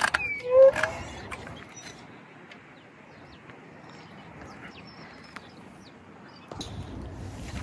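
Quiet farmyard background with faint bird chirps and small ticks. Near the start there is a click and a short rising call, and a low rumble comes in near the end.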